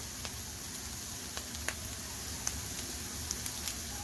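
Scrambled eggs with vegetables sizzling in a lightly oiled frying pan on the burner, a steady sizzle with a few small scattered pops.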